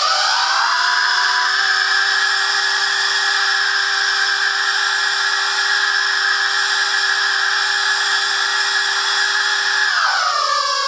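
Vacuum cleaner running with ten rubber squawking-chicken toys attached by their heads, the air through them sounding a loud, steady chord of several held squawk tones over the motor. About ten seconds in the motor is switched off and the tones slide down in pitch as it winds down.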